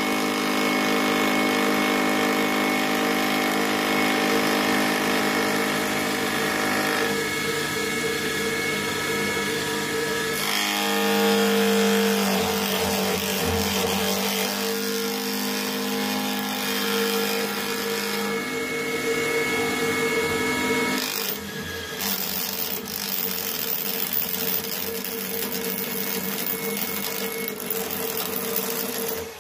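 Milling machine cutting with a two-insert carbide dovetail cutter: a steady machining whine made of several held tones. The set of tones shifts a few times as the cut goes on.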